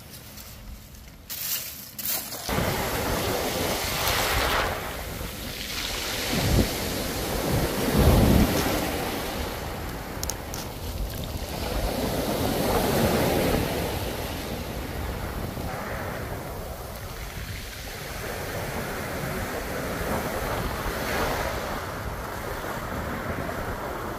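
Wind buffeting the microphone: a rushing noise that starts about two seconds in and swells and eases in gusts, loudest about eight seconds in.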